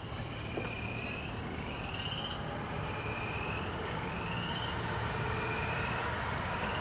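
A frog calling at night, a short rising call repeated about every second and a quarter, over a low steady rumble. A faint steady tone comes in about halfway through.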